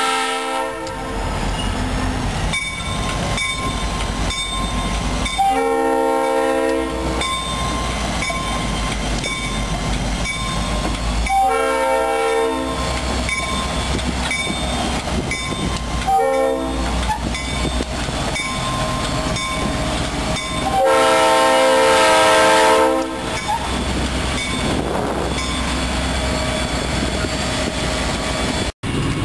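Nathan Airchime RS-3L three-chime locomotive horn on a CSX diesel sounding a series of blasts as the train passes: three long blasts a few seconds apart, then a short one and a last long, loudest blast, the crossing signal. Between blasts the diesel engines rumble and the wheels clatter over the rail joints, and the sound drops out briefly near the end.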